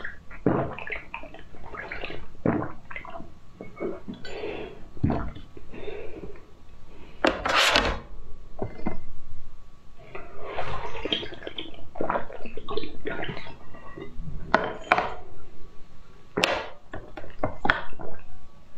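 Close-miked slurping and sucking as a drink is sipped and then sucked out of tubes. The wet slurps and mouth clicks come irregularly, and one long, sharp slurp about seven seconds in is the loudest.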